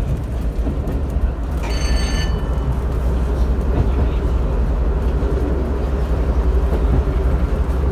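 Class 121 'bubble car' diesel railcar running along the line, heard from inside the driver's cab: a steady low engine rumble with the sound of wheels on the rails. A brief high-pitched tone sounds about two seconds in.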